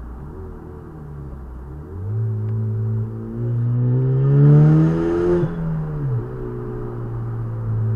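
Camaro 2.0-litre turbocharged four-cylinder with a catless downpipe and the electric exhaust cutout open, accelerating: the exhaust note climbs in pitch for about two seconds, with a brief hiss near the top, then drops and settles into a steady drone. Heard from inside the cabin.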